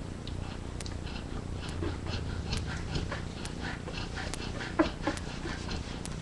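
Sleeping yellow Labrador retriever mother breathing heavily and snoring while two puppies nurse, their suckling making many small wet clicks and smacks. One sharper click comes near the end.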